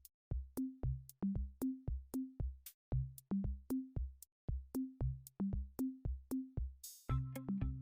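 Background music: an electronic beat of bass-drum hits, about three a second, with short bass notes stepping up in pitch, and synth chords coming in near the end.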